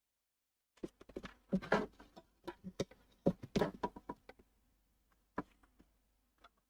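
Tools and small parts being handled on a workbench: a quick run of clicks, taps and light clatter starting about a second in and lasting a few seconds, then two single clicks near the end.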